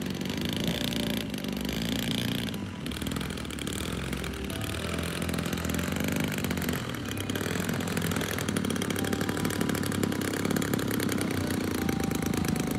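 The engine of a large-scale model airplane running at low throttle as the plane taxis on grass, getting somewhat louder in the second half as it comes toward the listener.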